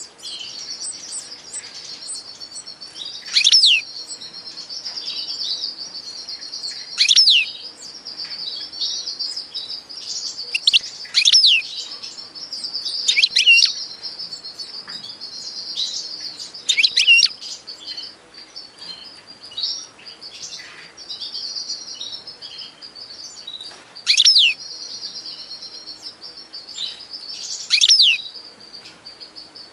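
Small birds twittering steadily, with a louder, sharply falling call breaking in every few seconds, about eight times.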